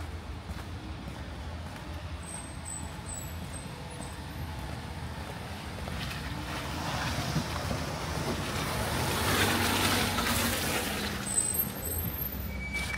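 A car driving slowly past over wet, slushy cobblestones, its tyre hiss and engine swelling to a peak about ten seconds in, then fading away.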